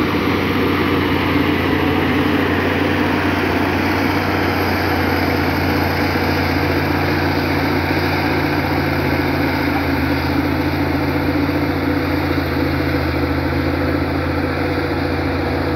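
Caterpillar 143H motor grader's diesel engine running steadily, its note shifting slightly about five seconds in.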